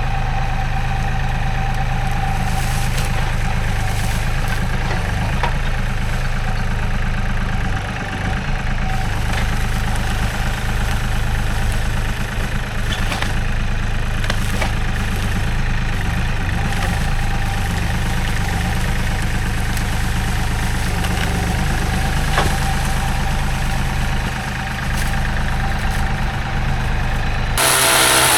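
An engine running steadily at idle. Near the end a higher, harsher engine sound cuts in, its pitch rising and falling.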